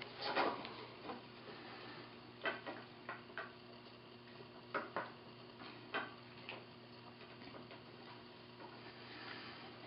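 Cord being pulled tight around a bar by hand: irregular soft clicks and brief rustles of rope, the longest rustle at the very start, over a faint steady hum.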